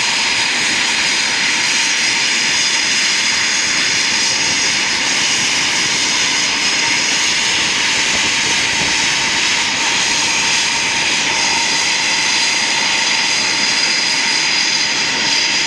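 Eurofighter Typhoon's jet engines running steadily at ground idle: a loud, even rush of jet noise with a high whistle on top.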